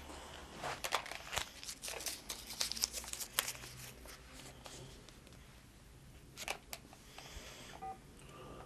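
Rapid clicks, crackles and rustling of a cordless phone handset being handled in the hands, dense for the first few seconds, then a couple of single clicks later.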